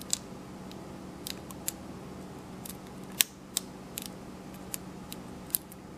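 Single-pin picking of a Brinks five-pin padlock: a lock pick and tension wrench making sharp, irregular clicks in the keyway, about a dozen, the loudest a little past three seconds in.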